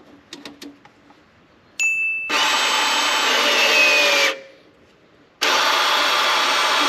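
Ryobi cordless crimping tool's motor running twice, about two seconds each, pressing clamp rings onto plumbing fittings. A short beep comes just before the first run, and a whine in it falls in pitch as that crimp finishes.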